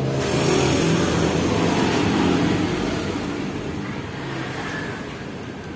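Suzuki GT750 two-stroke three-cylinder engine running; it swells louder about half a second in, holds, then eases back down after about two and a half seconds.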